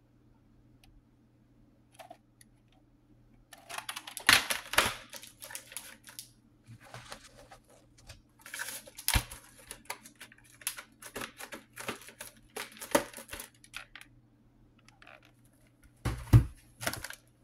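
VHS cassettes and their cases being handled: irregular plastic clicks, knocks and rustling, with a louder thump near the end, over a faint steady hum.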